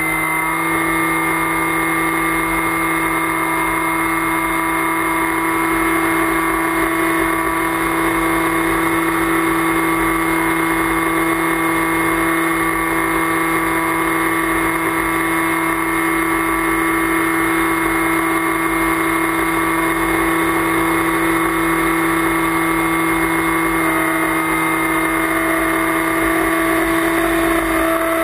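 An FPV flying wing's motor and propeller running at steady throttle, heard on board: a constant whine over a rush of air noise, with a second, higher tone joining near the end.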